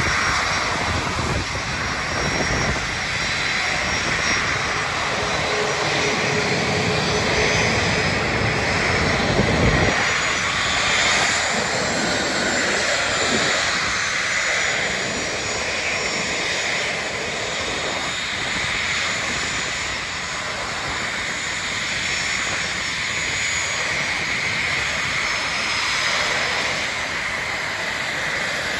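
Boeing 737-400's CFM56-3 turbofan engines running at taxi power as the jet taxis and turns close by: a steady jet rush with a faint high whine that drifts slightly in pitch.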